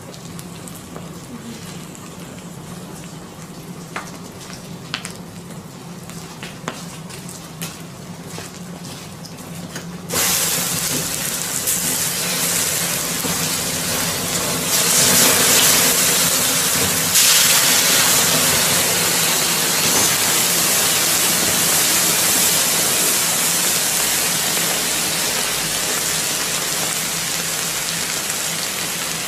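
Fire crackling faintly for about ten seconds, then a sudden loud, steady hiss as water poured from a watering can hits the burning, red-hot material and flashes to steam. The hiss swells for a couple of seconds partway through.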